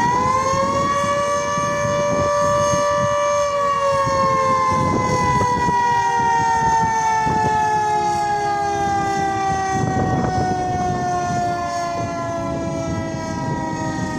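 Castle Castings Carter rotor-type civil defence siren sounding the attack (warning) signal. Its pitch rises about a second in, holds for a few seconds, then slowly falls through the rest of the wail.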